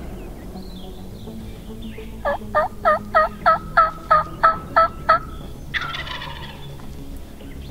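A run of about eleven loud, evenly spaced turkey yelps, about three a second, followed shortly after by a short rattling gobble from a wild turkey tom.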